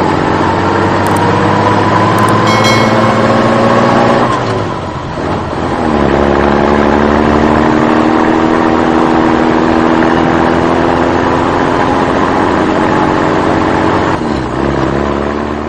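Truck engine sound, its pitch climbing slowly as if accelerating. It drops away briefly about five seconds in, then picks up and climbs again, with another dip near the end.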